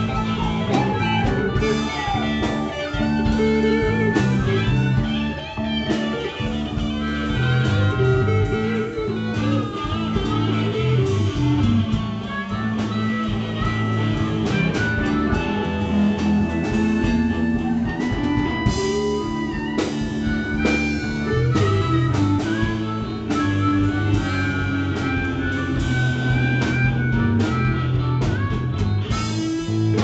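Live blues band playing: electric guitar over bass and drums, with a harmonica played into the vocal microphone holding long notes.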